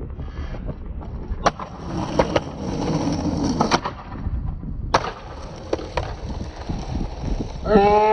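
Skateboard wheels rolling, broken by several sharp clacks of the board popping and landing. Near the end a person shouts.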